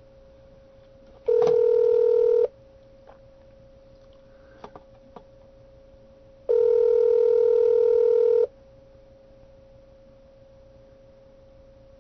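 Telephone ringback tone heard over the line, meaning the call is ringing at the far end: two rings of steady tones about four seconds apart, the first cut short a little after a second in, with a faint steady tone and a few small clicks between them.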